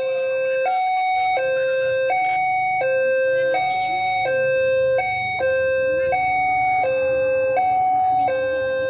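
Railway level-crossing warning alarm sounding a steady two-tone electronic ding-dong, a lower and a higher tone switching about every three-quarters of a second, with a low rumble underneath from about a second in as the train approaches.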